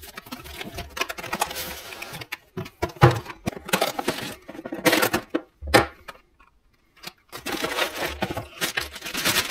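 A cardboard box being opened and its packaging handled: irregular clicks, knocks and rustling, with a brief quiet pause about six seconds in.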